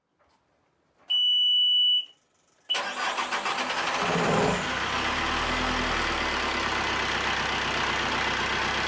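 A steady high-pitched electronic beep lasts about a second, then the narrowboat's diesel engine cranks and catches near the three-second mark and settles into steady running. It is a restart after the engine cut out, which the crew thinks was from overheating after coolant bubbled over.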